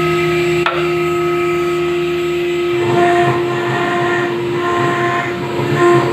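High-speed CNC engraving spindle cutting granite, with a steady high whine and grinding noise. About three seconds in the sound turns rougher and uneven, with tones that come and go as the cutter works.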